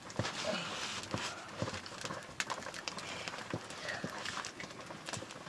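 Nettle greens cooking in a blackened iron wok over an open wood fire: a faint hiss with irregular light clicks and knocks from the crackling fire and the ladle in the pan.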